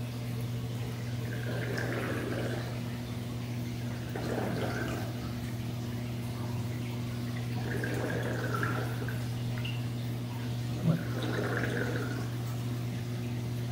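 Aquarium water sloshing and gurgling in surges every few seconds over a steady low hum, with one sharp knock about eleven seconds in.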